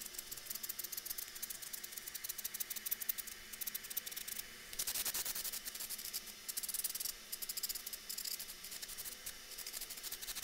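Aerosol can of electronic contact cleaner sprayed into a mixing console's jack inserts and XLR connectors in a string of short hissing spurts, with longer spurts around the middle and later on. The spray is to clean the dirty switches in the insert jacks.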